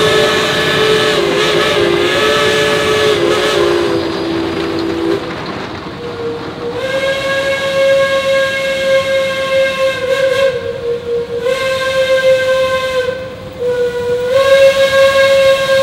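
Steam locomotive whistles. First a three-chime whistle chord sounds for about five seconds, wavering in pitch. After a short pause, a single-pitched whistle is blown in long blasts broken by brief gaps, over a hiss of steam.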